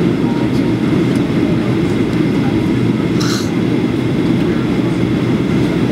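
Steady cabin roar of an Alaska Airlines Boeing 737-800 in descent, its CFM56-7B turbofans and the airflow heard from a window seat inside the cabin. A brief hiss cuts in about three seconds in.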